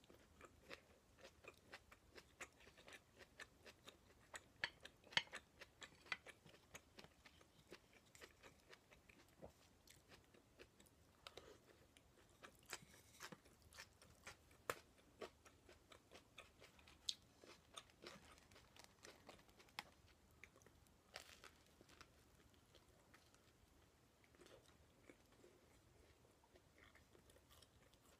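Close-miked chewing of food: a dense run of small crunches and wet mouth clicks, thinning out in the last few seconds.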